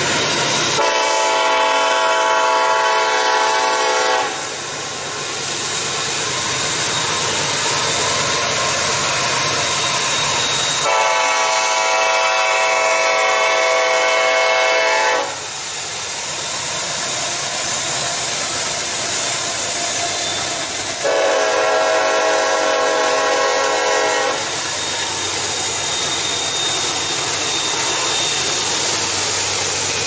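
Nathan K5LLA five-chime air horn on a Norfolk Southern diesel locomotive sounding three long blasts several seconds apart, over the steady noise of the passing train.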